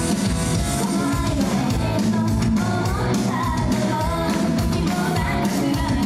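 Live idol pop-rock song: girls' voices singing a melody over loud rock-style accompaniment with electric guitar and a steady drum beat.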